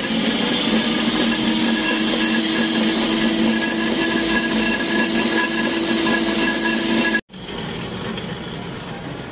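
Kong Sung Beaver 50 electric pipe threading machine running, a steady motor-and-gear whine with several held tones while the die head cuts a thread on a steel pipe. The machine runs normally on its newly fabricated replacement spur gear. The sound cuts out for an instant about seven seconds in and carries on a little quieter.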